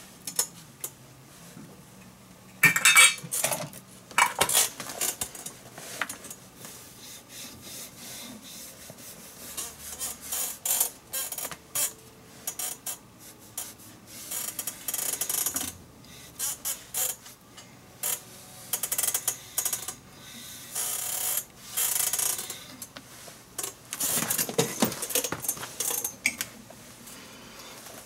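Small metal tools and items on a workbench being handled and a leather baseball glove rubbed, giving irregular clinks, scrapes and rustling in several short bursts.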